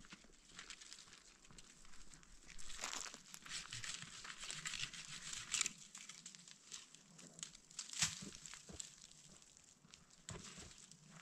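Quiet rustling and crinkling made of many small clicks. It is busiest a few seconds in, with one sharper click about eight seconds in.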